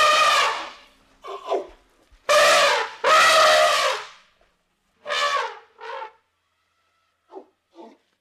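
Elephant trumpeting: a series of loud, blaring calls, each up to about a second long with the pitch dropping at the end. In the second half the calls are shorter and fainter.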